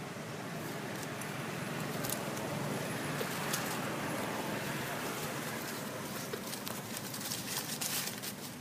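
Steady outdoor background noise with scattered crackles and rustles, which thicken near the end.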